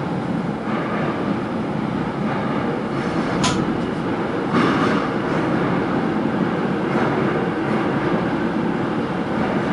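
Steady rumble of a Seoul Metro Line 5 subway train heard from the driver's cab, with two brief sharp clicks about three and a half and four and a half seconds in.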